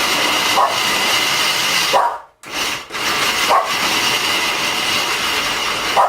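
Blender motor running with a steady high whine as it churns a thick, sticky date-and-oat mixture; it cuts out about two seconds in and starts again a moment later. A dog barks briefly a few times over it.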